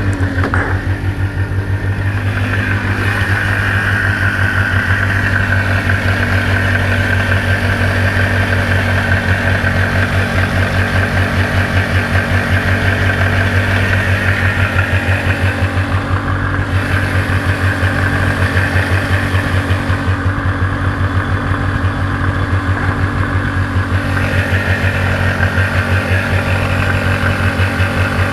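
Rotax 494 two-stroke twin of a 1997 Lynx G-type Enduro 500 snowmobile idling steadily with an even, pulsing beat, while its idle speed is being set a little lower.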